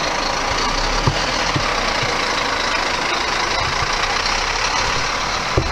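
City bus engine running as the bus pulls away, over steady street traffic noise, with a few soft thumps.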